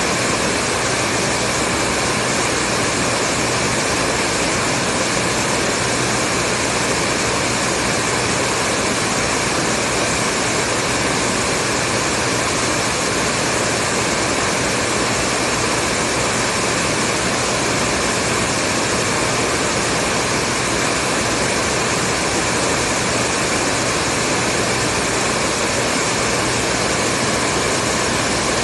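Hair dryer running at a steady speed: an even, continuous rush of blown air with a faint low hum beneath it.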